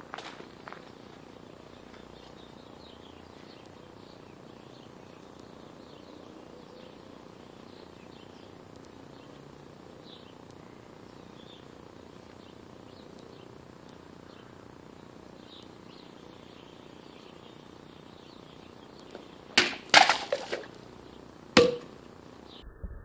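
Faint steady outdoor background with small high chirps. Near the end, a katana's double cut through plastic water bottles: a quick cluster of sharp cutting sounds, then a single sharp knock with a short ring as the cut pieces land.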